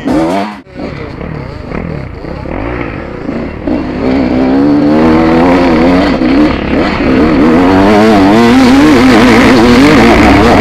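Enduro dirt bike engine revving hard, its pitch rising and falling with the throttle over rough trail; it gets louder about four seconds in.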